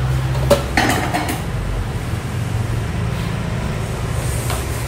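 A metal ladle and dishes clinking: one sharp clink about half a second in, then a short clatter of several clinks around a second in, over a steady low rumble.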